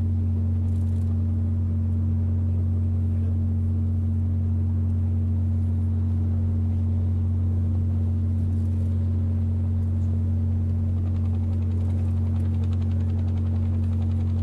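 Steady low hum of a ship's engines and machinery under way, one even drone that holds the same pitch and level throughout.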